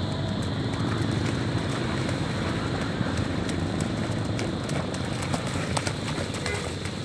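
Wind buffeting the phone's microphone: a steady, fluttering low rumble, with a few faint clicks from about three seconds in.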